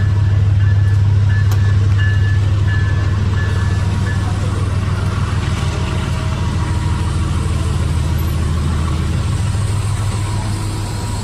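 Locomotive engine running as the train moves, a steady low drone that eases slightly near the end.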